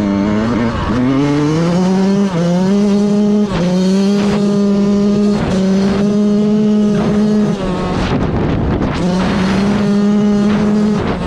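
Yamaha YZ125 two-stroke single-cylinder dirt bike engine revving hard under riding, its pitch climbing over the first couple of seconds and then held high. The note drops briefly several times and sits lower for a moment near the end before climbing again.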